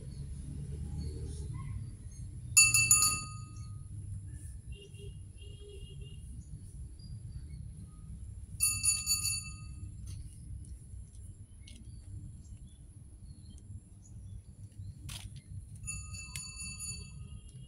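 A clear bell-like ding sounds three times, each about half a second long and roughly six seconds apart, the first the loudest, over a steady low outdoor rumble.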